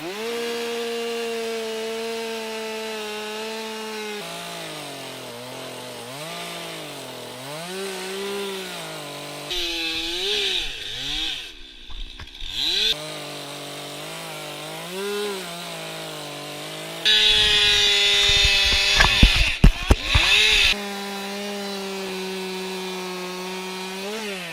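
Two-stroke chainsaw cutting into wood for carving. It holds steady at high revs, then its pitch dips and rises again and again as the chain bogs in the cut and recovers. About two thirds of the way through comes a louder stretch with a heavy hiss of cutting and sharp knocks.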